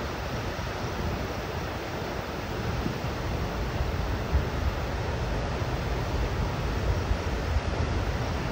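Steady rushing roar of floodwater pouring over and around a concrete dam spillway, with wind buffeting the microphone.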